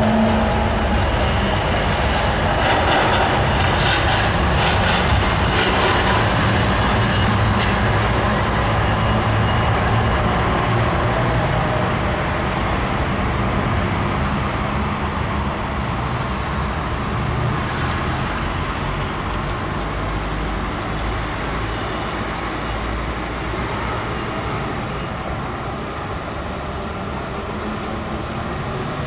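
Trams rolling past on the rails, with the steady rumble of wheels and running gear and a hum at the start, slowly fading as they move away.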